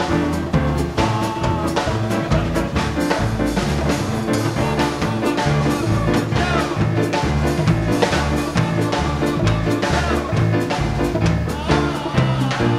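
Live Latin dance band playing a tune: horns (trumpet, trombone, saxophone) over string bass, drum kit and timbales keeping a steady beat.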